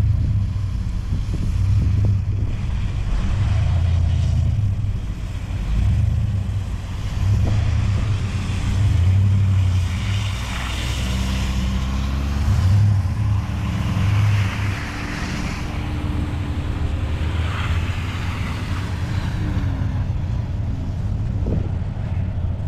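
A vehicle's engine running under load, its revs rising and falling again and again as it drives out through wet, slushy snow.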